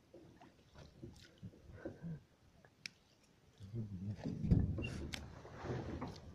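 Handling noises from checking a gill net over the side of a boat: scattered clicks and knocks, one heavy low thump about halfway through, and a hissy watery rush near the end, with a low mumbling voice under it.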